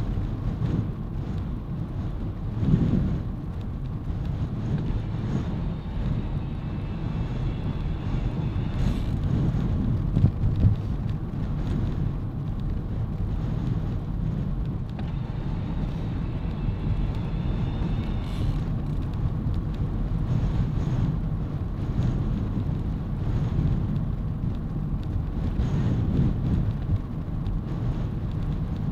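Bicycle riding along a coarse tarmac road: a steady low rush of tyre noise and wind buffeting the microphone.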